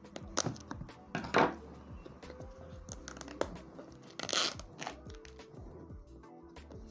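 Product packaging being opened by hand: plastic wrap and box parts crinkling and tearing, with scattered taps and clicks and two louder rustles, about a second and a half in and past four seconds in. Soft background music runs underneath.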